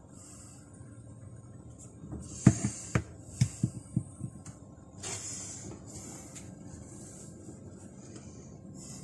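Handling noise: a quick cluster of about seven knocks and clicks between two and a half and four seconds in, the first the loudest, with short rustling sounds around them.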